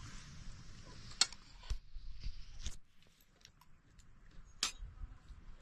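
A few sharp clicks and light clinks, four of them louder, over a faint hiss that drops away about three seconds in.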